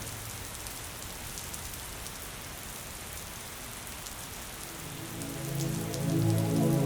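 Steady rain pattering with fine drop ticks. About five seconds in, soft low sustained music notes swell in over it.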